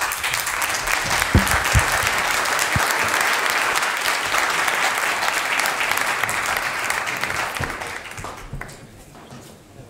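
Audience applauding steadily, dying away over the last two seconds or so. A few low thumps sound under the clapping in the first few seconds.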